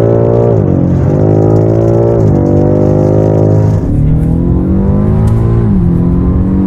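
BMW M5 Competition's 4.4-litre twin-turbo V8 accelerating through the gears. The engine note climbs and then drops sharply at each upshift, four times.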